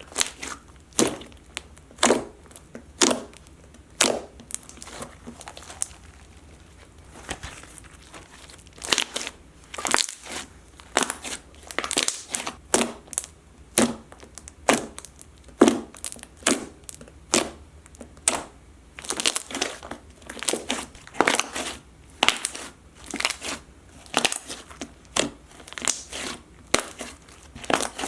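A large mass of slime being squished and kneaded by hand, giving repeated crackling, squelching pops about once a second, with a quieter stretch about a quarter of the way in. The slime is being reworked after liquid starch was mixed in to reactivate it.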